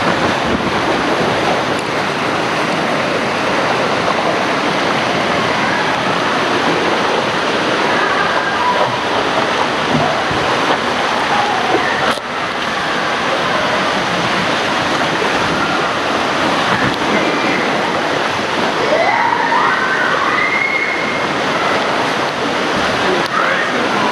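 Fast water rushing and splashing steadily through a Klarer Crazy River wild-water slide channel around a sliding rider.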